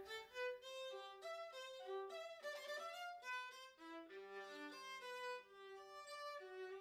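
A solo bowed string instrument of the violin family playing a quick-moving melody, note after note, with a low note held underneath it through the second half.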